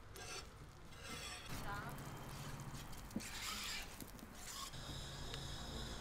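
A metal spatula scrapes across a steel flat-top griddle in two short rasps, among stall clatter and background voices. A steady high tone comes in near the end.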